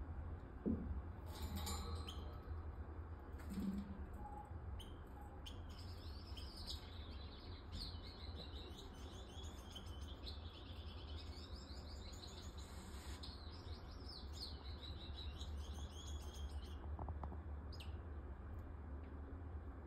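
Grass parakeet (Neophema) twittering: a fast, unbroken run of high chirps lasting about ten seconds, starting a few seconds in and stopping near the end. A few sharp clicks come before and after, over a steady low hum.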